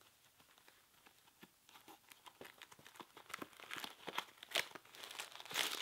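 Insole packaging crinkling and tearing as it is unwrapped by hand: faint at first, starting about a second and a half in, then a dense run of sharp crackles that grows louder towards the end.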